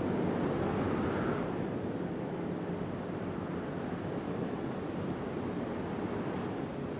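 Wind blowing in a steady low rush, a little stronger in the first couple of seconds and easing slightly after.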